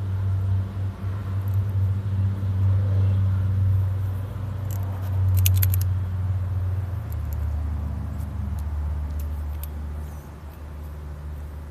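A loud, steady low motor hum that drops in pitch about seven seconds in, with a few small clicks around the middle.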